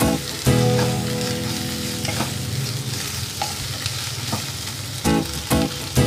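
Onion and garlic paste sizzling in oil in a non-stick frying pan while a wooden spatula stirs and scrapes it, with a few sharp knocks of the spatula against the pan. The paste is still raw, being fried until golden. A steady low hum runs underneath.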